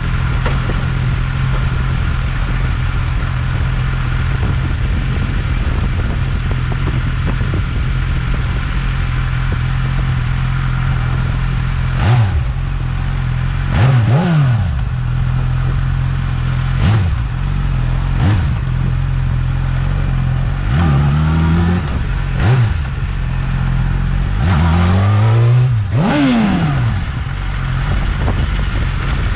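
Yamaha R6 inline-four engine on its stock exhaust, idling steadily, then blipped in about five quick revs from about twelve seconds in, with two longer, held revs in the second half.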